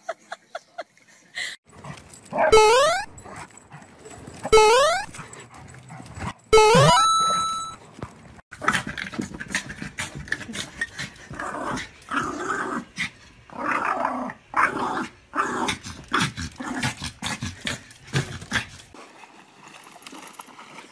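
A small dog growling and yapping in irregular bursts for about ten seconds. Before it come three loud, short rising calls about two seconds apart.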